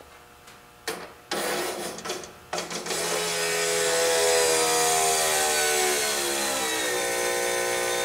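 Electric fuel pump, jumped straight from a battery, buzzing briefly about a second in and then running steadily with a whine that sinks slowly in pitch. It is priming and pressurising the fuel lines and regulator of a fuel-injected 5.9 Magnum V8.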